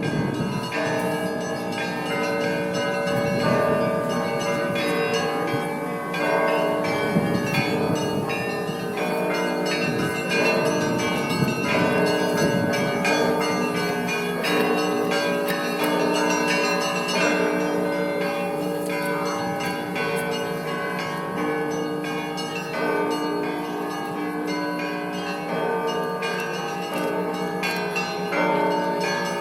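Russian Orthodox monastery bells ringing together: many bells of different pitches are struck in a continuous, overlapping pattern, with the deeper bells ringing on underneath.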